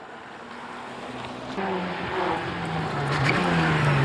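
Engine of a Citroën Xsara hill-climb race car approaching, getting steadily louder, its pitch holding fairly steady.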